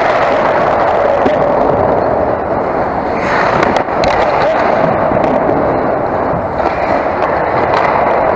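Ice hockey play: skate blades scraping on the ice over a steady rink hum, with a few sharp clacks of sticks and puck.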